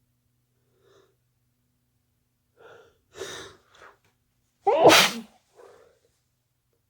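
A person with a head cold sneezing: a few quick catching breaths build up, then one loud, wet sneeze about five seconds in, followed by a short breath.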